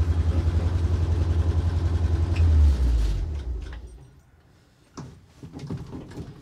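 1962 Ford C750 cabover's V8 engine running with a steady, evenly pulsing low throb, heard from inside the cab. It swells briefly, then is switched off about three seconds in and dies away. A few light clicks and knocks follow.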